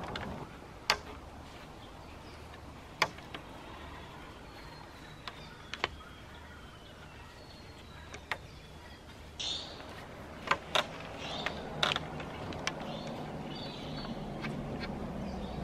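Scattered sharp knocks and clicks from handling timber poles while a rail is lashed onto a wooden tree-house frame, several in quick succession a little past the middle. Faint bird calls are heard behind.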